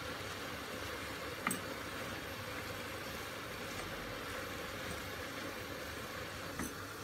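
Steady hiss of chopped spinach sautéing in a pot while it is stirred with a wooden spoon, with two light knocks of the spoon against the pot, about a second and a half in and near the end.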